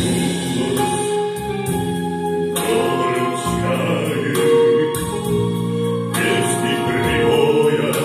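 Man singing into a microphone over an amplified recorded backing track of held chords, which change every second or two.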